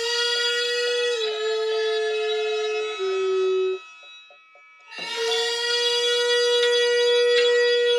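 Hichiriki, the small double-reed pipe of gagaku, playing long reedy held notes. The first note sags slightly in pitch about a second in and steps lower near three seconds. It breaks off for about a second before a new long, higher note starts about five seconds in.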